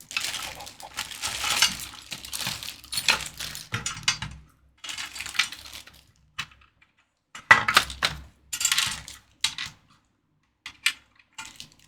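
Unpacking the parts of an outdoor enclosure kit by hand: irregular rustling of packaging with light clinks and clicks of small hardware, in two spells with a pause of about two seconds in between and a few short clicks near the end.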